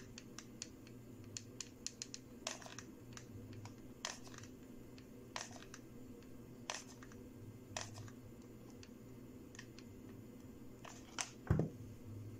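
Light, irregular clicks and taps from working a hot glue gun and handling fabric, coming thick at first and thinning out, with one louder knock near the end.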